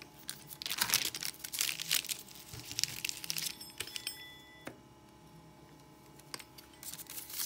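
Crinkling and rustling as hands press, smooth and shift a rolled-out sheet of pie dough on the sheet beneath it, densest in the first few seconds, followed by a few light clicks.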